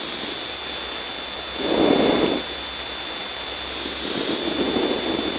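Hiss of an aircraft headset intercom feed with a faint steady high whine, broken by two muffled swells of rushing noise: a louder one about two seconds in and a fainter one near the end.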